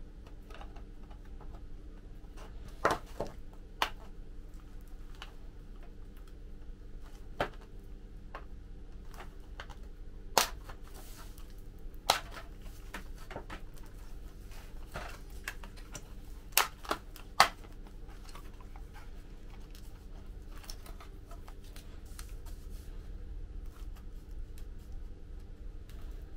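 Hard plastic model kit parts clicking and tapping as they are handled and pressed into place: about seven sharp, separate clicks at irregular intervals, over a steady low hum.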